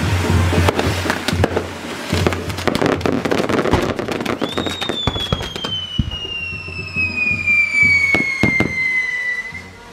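Fireworks going off in rapid crackles and bangs. About four and a half seconds in, a long whistle starts and slowly falls in pitch until near the end, with a few more bangs over it.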